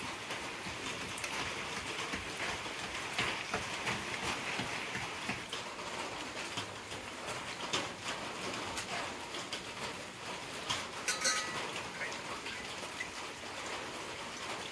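Rain falling steadily: a dense patter of drops with scattered louder drips. A brief high-pitched call sounds about eleven seconds in.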